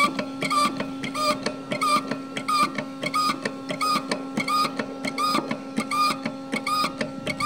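Hydraulic pump stroking in a steady rhythm: a short squeaky chirp a little under two times a second over a steady hum. It is building pressure in the mooring-winch brake-test rig toward about 254 bar.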